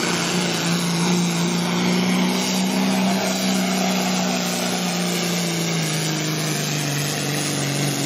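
Diesel semi truck engine running at a steady speed, easing slightly lower in pitch a little past halfway.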